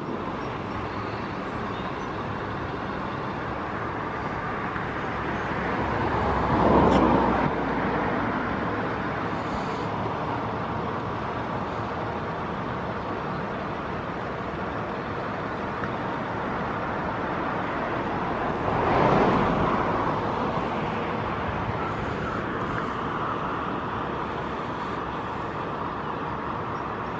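Steady outdoor background noise with two vehicles passing by, one about seven seconds in and another near nineteen seconds, each swelling and fading over a couple of seconds.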